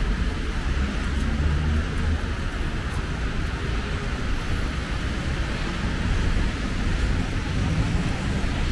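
Traffic on a rain-soaked city street: a steady hiss of tyres on wet asphalt over a low rumble.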